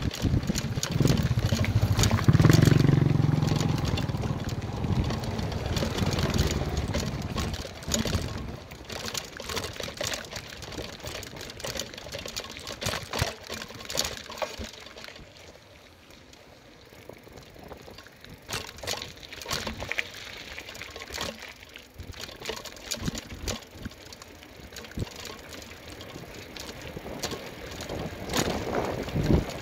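Bicycle rolling over a rough gravel and concrete road, its parts rattling and clicking irregularly over the bumps. A loud, low rushing of wind on the microphone fills the first seven seconds or so.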